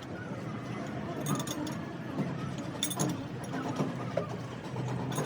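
Hand tools clinking and tapping on metal engine parts, a few sharp clinks over a steady background din.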